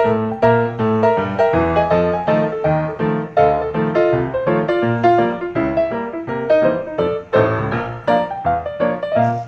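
Background music led by piano, a steady stream of notes played several to the second.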